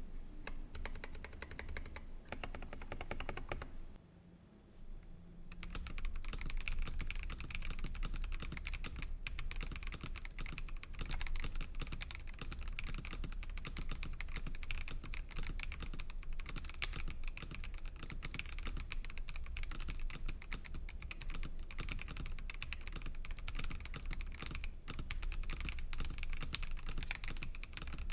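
Continuous fast typing on a mechanical keyboard fitted with PBT dye-sublimated keycaps: a dense run of key clacks. It breaks off briefly about four seconds in, then picks up again.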